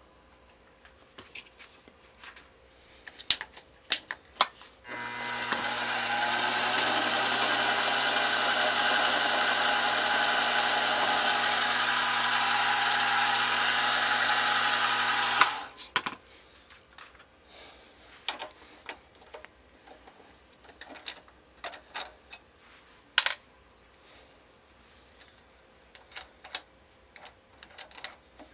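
Milling machine spindle running for about ten seconds with a small center drill spotting the wrist pin hole in a brass piston: a steady motor hum and whine with a high hiss, starting about five seconds in and stopping suddenly. Scattered light clicks and taps from handling the tooling come before and after it.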